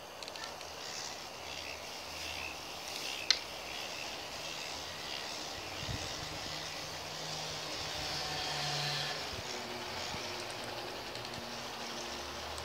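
K'NEX swing-ride model running: its small motor and plastic gearing give a steady whirring rattle as the swings circle. One sharp click stands out about three seconds in.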